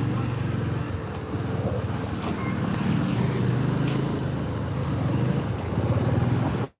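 Motor vehicle engine running steadily while travelling, with wind and road noise; the sound cuts off abruptly just before the end.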